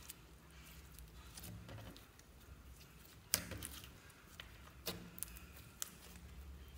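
White slime squished, folded and stretched by hand, giving scattered sharp clicks and pops. The loudest comes about halfway through, with a few smaller ones after it.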